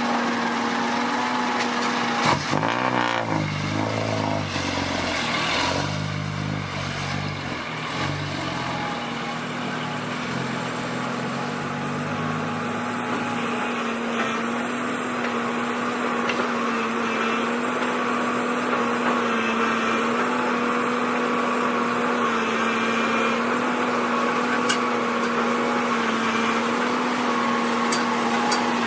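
Heavy earthmoving machinery running, with a steady engine hum and whine throughout. A second engine's pitch rises and falls during the first dozen seconds or so, then settles.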